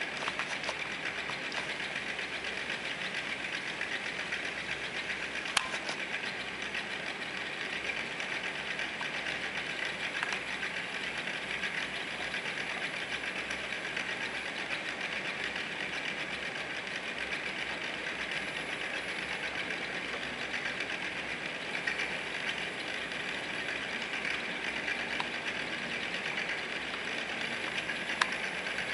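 Small homemade DC motor running: its spinning wire rotor rattles on its wire shaft and supports in a steady fast buzz, with a couple of sharp clicks.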